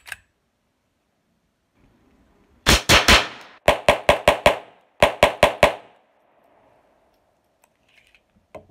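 Colt 1911 pistol in .22 Long Rifle fired rapidly: about fourteen sharp shots in three quick strings, the last string ending about six seconds in. The shooter finds the pistol still hangs up when fired this fast.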